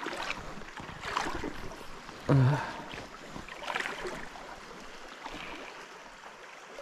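River water flowing, with several brief sloshing splashes of water. The loudest comes a little over two seconds in, and it settles to just the running water in the last couple of seconds.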